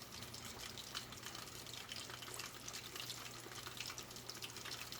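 Bratwursts deep frying in hot oil: a steady crackling and bubbling.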